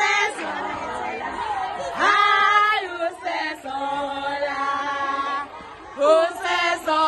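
A group of female voices singing a chant together in long held notes, with short breaks between phrases.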